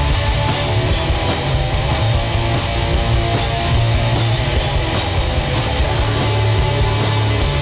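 Heavy rock band, with electric guitar, bass guitar and drums, playing a loud, dense, continuous passage in a mono mix.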